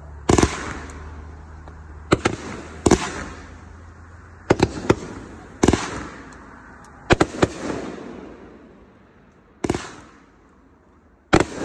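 Aerial fireworks going off: about a dozen sharp bangs at irregular intervals, some in quick pairs, each followed by a fading echo.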